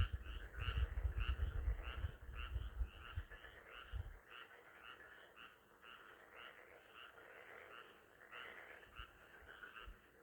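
A chorus of frogs croaking, many short overlapping calls repeating several times a second. Low rumbling sits underneath for the first four seconds or so.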